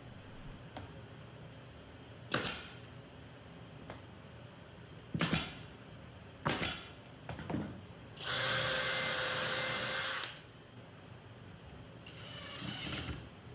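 A drill driving screws into plywood: a steady two-second run past the middle and a shorter run near the end, with a few short sharp bursts before them.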